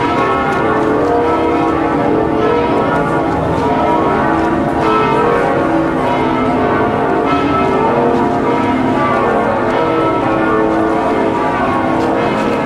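Church bells pealing, many bells ringing together at once in a loud, unbroken clangour.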